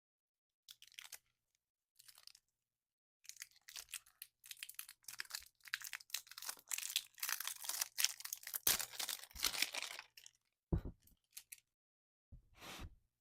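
Slime being mixed and squished by hand: short irregular bursts of sound with brief gaps, densest in the middle, then a few separate deeper pops near the end.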